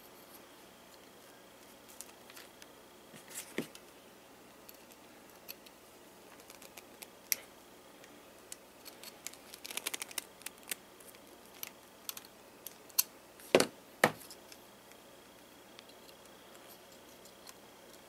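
Metal tools on a coiled steel washing-machine clutch spring: pliers clicking and clinking against the spring as its end is gripped and bent. There are scattered small clicks, a quick run of them about ten seconds in, and two louder sharp clicks a few seconds later.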